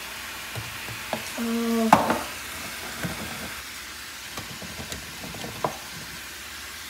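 Food sizzling in a frying pan with a steady hiss, while a utensil stirs it, with scattered knocks against the pan; the loudest knock comes about two seconds in.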